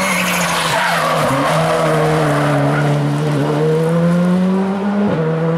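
Skoda Fabia R5 rally car's turbocharged four-cylinder engine pulling hard, its pitch rising steadily as it accelerates out of a bend, with tyre noise as the car slides. There is a brief break in the engine note near the end.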